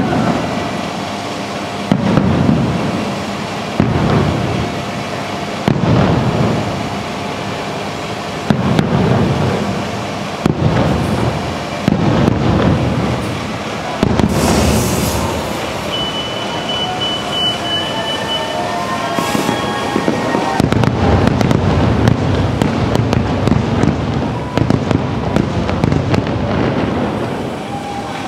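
Aerial fireworks shells bursting with deep booms about every two seconds, giving way about two-thirds of the way in to a dense, continuous barrage of booms.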